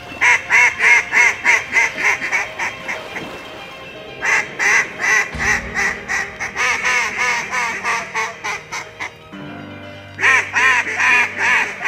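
Loud, rapid mallard hen-style quacking in three long runs, about four to five quacks a second, each run starting loud and tapering off like a hail call. Low sustained music notes sit underneath from about five seconds in.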